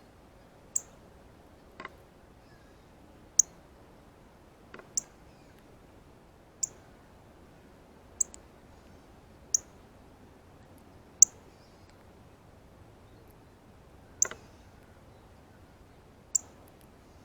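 Male northern cardinal giving its sharp, high feeding chirps, about nine single notes spaced roughly a second and a half apart.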